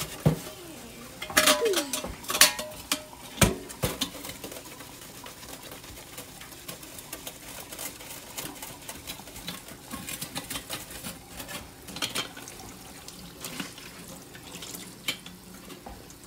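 Stainless steel coffee pot being scrubbed with a sponge and water to clean off fire blackening: a few sharp metallic knocks with a short ring in the first few seconds, then steady scratchy scrubbing with small clicks.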